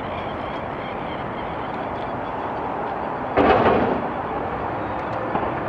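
Steady outdoor background noise, broken once about three and a half seconds in by a sudden loud thump that dies away within about half a second.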